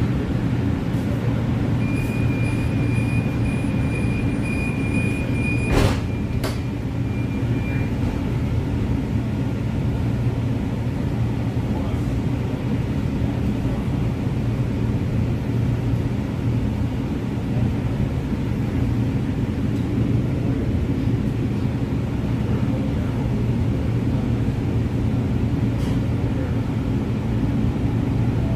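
Steady low drone inside a CTrain light-rail car standing at a station. A steady high tone sounds for about six seconds starting about two seconds in, and a single sharp knock comes about six seconds in.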